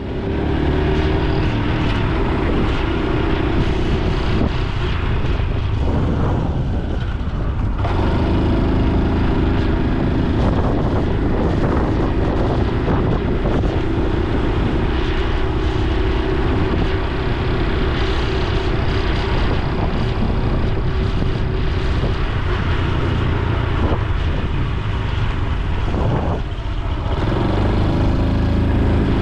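Honda Super Cub C125's single-cylinder four-stroke engine and exhaust running steadily under way, the engine note dipping briefly about six seconds in and again near the end.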